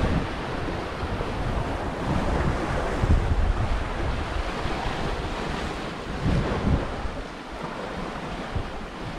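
Sea surf washing on a rocky shore, with gusts of wind buffeting the microphone now and then.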